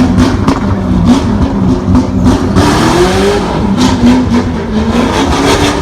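Mustang's engine revving hard as the car accelerates away: its pitch climbs over the first three seconds, drops sharply as if on a shift, then climbs again.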